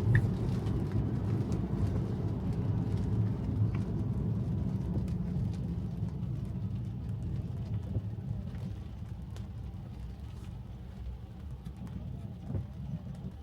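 Road and tyre noise inside a moving Tesla's cabin: a steady low rumble with no engine note, gradually growing quieter toward the end.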